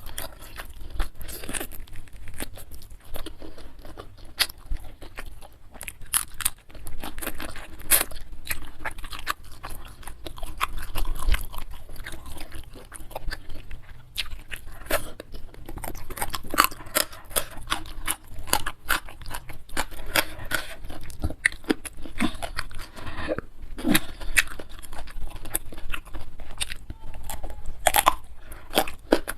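Close-miked chewing with frequent crisp crunches, a person eating mouthful after mouthful of food. The crunches come irregularly, several a second at times.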